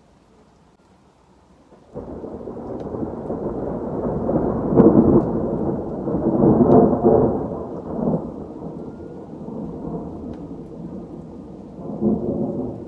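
Thunder: a long rolling rumble breaks in suddenly about two seconds in, swells twice and dies away, then rumbles up again near the end.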